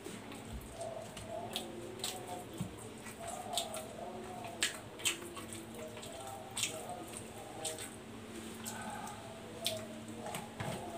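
Close-up eating sounds: wet clicks and smacks of the mouth and fingers while mixing rice by hand and chewing, with a faint steady hum underneath.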